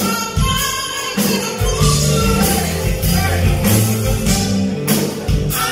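Live soul band playing, with vocals over drums and a Nord electric keyboard, and a steady bass line underneath.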